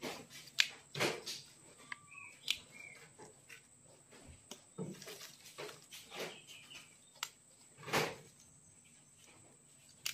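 Soft rustling and light snapping as daun sabung leaves are plucked off their stalks by hand and dropped into a plastic basin, in scattered short bursts. A bird chirps faintly a few times about two to three seconds in.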